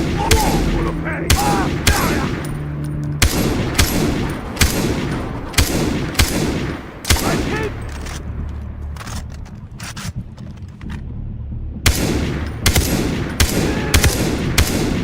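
Gunfire from a shooter video game: single shots about once a second, a pause in the middle, then a quicker run of shots near the end, with game voices between them.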